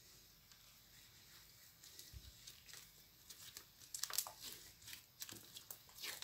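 Fluffy slime being stretched and squeezed by hand, giving a run of small wet clicks and crackles. The clicks begin about two seconds in and are loudest around the middle.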